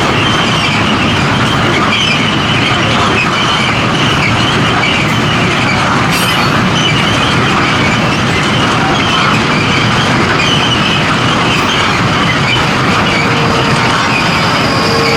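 Heavy freight train of limestone wagons rolling past steadily, with some high wheel squeal.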